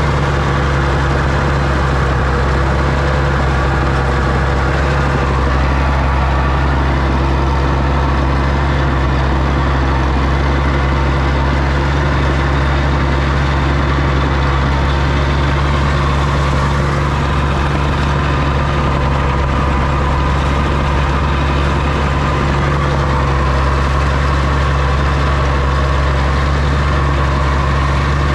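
Oliver OC-6 crawler tractor's engine running steadily at an even speed, with a deep, constant drone and no revving or changes.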